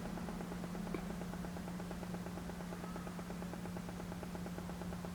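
Steady low electrical hum at one pitch over a faint hiss, with a small click about a second in.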